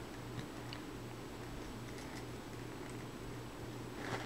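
A cat rubbing its head against a round blow-dryer hairbrush on a bedsheet: faint scratching and small ticks from the bristles over a low steady hum, with a brief louder rustle near the end.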